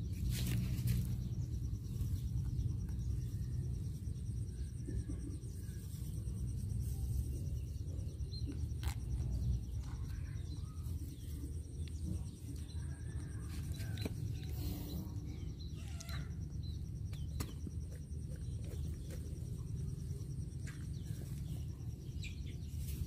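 Outdoor ambience: a steady low rumble with scattered light clicks and taps, and a faint steady high-pitched tone above it.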